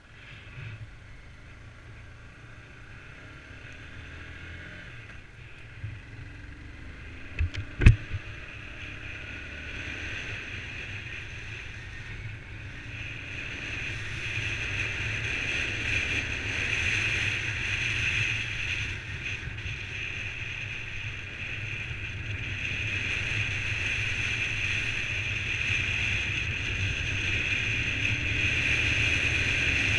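Honda CBR125's single-cylinder four-stroke engine running as the bike rides along, with wind rushing over the camera microphone and growing steadily louder as it gathers speed. A sharp knock about eight seconds in.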